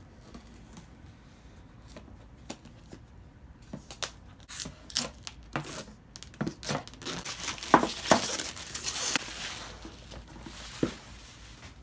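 Power supply packaging being opened and handled by hand: scattered taps and clicks, then a busy stretch of tearing and crinkling with sharp knocks in the middle.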